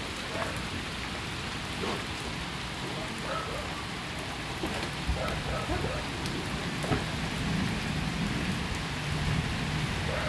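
Steady rain falling on water and pavement: an even hiss with scattered drips. From about seven seconds in, a vehicle's low engine hum grows louder as it approaches.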